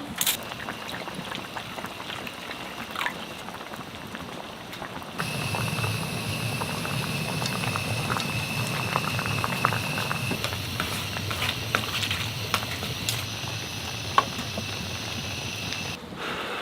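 Liquid boiling in a pot on an outdoor cooking fire: a steady bubbling with many small pops, louder from about five seconds in.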